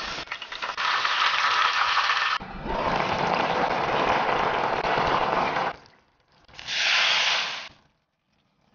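Battered food sizzling and crackling as it deep-fries in oil at about 180 °C. After a cut, a fuller, steady sizzle comes from a pot, then a shorter burst of hissing near the end.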